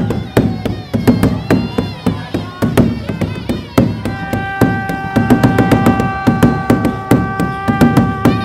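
Dhamal drumming: fast, steady drumbeats at about five a second. From about four seconds in, a long held wind-instrument note sounds over it.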